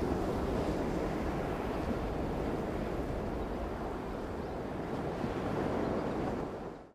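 Steady wash of sea and wind, fading out in the last half second.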